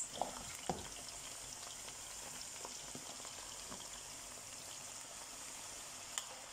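Raw potato sticks deep-frying in hot oil in a black pan: a steady bubbling sizzle, the oil boiling up around the freshly added, still-cool potatoes. A few sharp clicks come just after the start and one more near the end.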